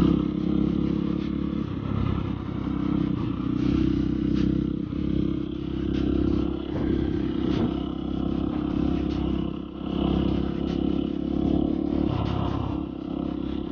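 Dirt bike engine being ridden, its pitch rising and falling as the throttle opens and closes.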